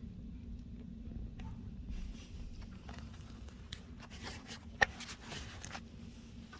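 Snowstorm wind heard muffled from indoors: a low rumble under a steady hum, swelling in the middle, with light taps and one sharp click about five seconds in.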